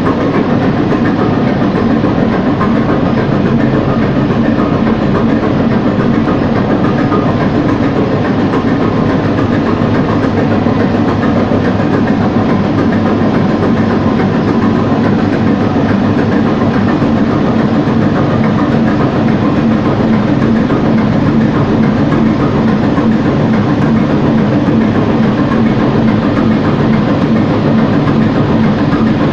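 Large inline multi-cylinder marine diesel engine running steadily at constant speed, loud and close in the boat's engine room.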